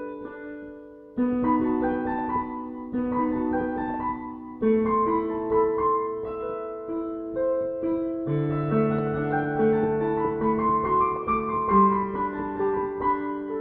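Slow piano music: held chords that change every second or two, with a melody over them.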